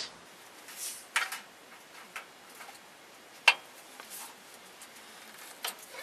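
A few light, sharp metallic clicks and taps with soft rustles between them, the loudest about halfway through: sheet metal being shifted and lined up by hand in a box and pan brake.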